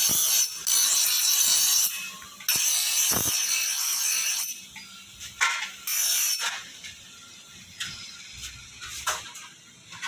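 Steel trowel blade pressed against a spinning grinding wheel: a harsh, high-pitched metal grinding in several passes of a second or two each. The grinding turns quieter and more broken after about six seconds.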